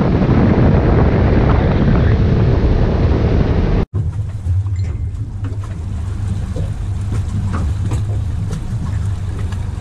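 Bar Crusher boat running at speed across the lake: wind buffeting the microphone over engine and water noise. After a sudden cut about four seconds in, a steady low engine hum from the boat idling, with a few faint knocks.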